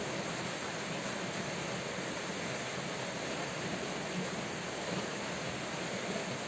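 Steady rain falling, an even wash of noise with no separate drops or thunder standing out.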